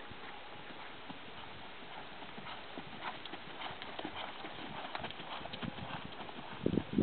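Hoofbeats of an American Paint Horse mare trotting on sand footing. They grow louder about halfway through as she passes close, and a few heavier low thumps come near the end.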